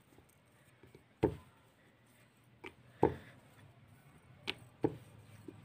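Steel rolling pin rolling out a small disc of spinach puri dough on a round rolling board, with several short knocks as the pin bumps and rocks on the board.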